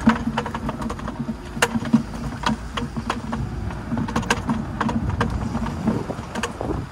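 Spinning fishing reel being cranked to retrieve the line: a steady whirr with scattered light clicks throughout.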